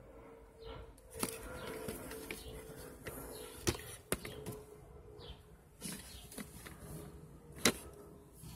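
Handling noise as a car speaker and its cardboard box are turned over: scattered light taps and rustles with a few sharp clicks, the loudest two close together near the middle and one near the end, over a faint steady hum.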